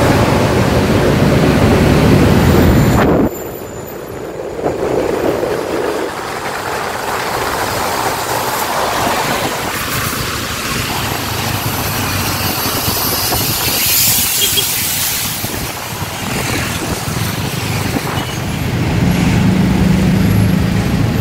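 Diesel engine of an intercity coach running close by as it pulls away, loud and steady, dropping off sharply about three seconds in. Then steady traffic noise from passing vehicles and tyres on a wet road, with a stretch of hiss midway.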